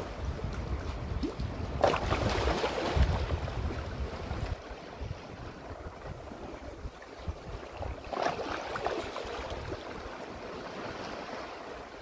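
Small sea waves breaking and washing over rocks on a rocky shoreline, with two louder surges about six seconds apart. Wind rumbles on the microphone during the first few seconds.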